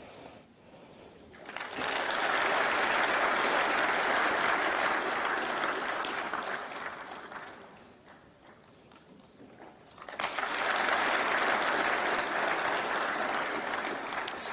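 Audience applauding in two rounds, each several seconds long, with a lull of about two seconds between them.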